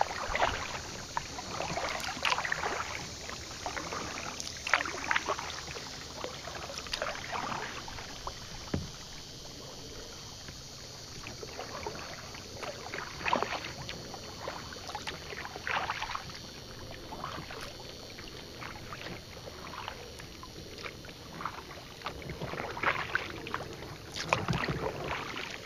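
Kayak paddle strokes: the blades dip and splash in the water in an irregular rhythm, a splash every second or two, with quieter spells between.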